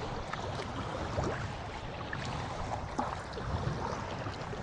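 Kayak paddling on the sea: water splashing and dripping from the paddle blades in small irregular plips, over a steady low rumble.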